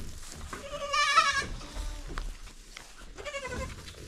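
Goat kid bleating twice: a loud, wavering, high call about a second in and a shorter one near the end.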